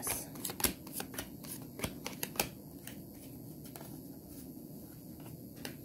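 Tarot cards being shuffled by hand: a quick series of sharp card clicks and slaps through the first couple of seconds, then softer handling with a few single clicks.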